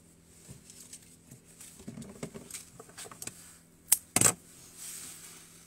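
Florist's scissors snipping a foliage stem about four seconds in, a sharp click and then a louder snap, with light rustling of leaves and stems around it.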